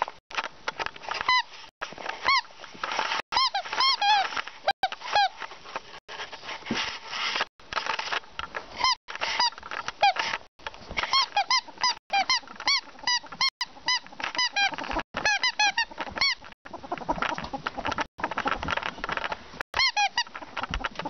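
Runs of short squeaks, two to four at a time, each rising and falling in pitch, while a ferret plays on a carpet. Scuffling noise fills the gaps, and for a few seconds after the middle there is scuffling without squeaks.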